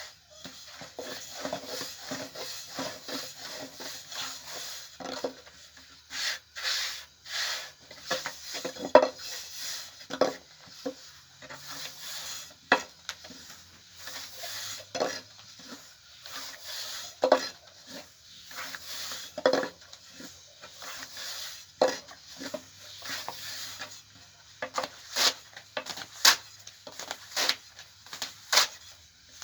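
Cookware being worked by hand: continual scraping and rubbing with irregular sharp knocks and clicks, as a utensil scrapes and taps against a pot or pan during bread-making.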